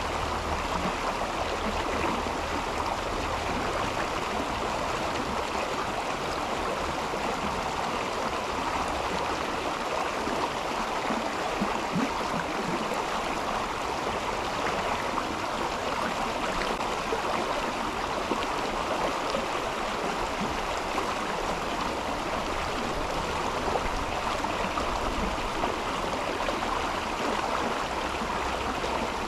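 River water rushing and gurgling steadily over stones, a continuous even flow.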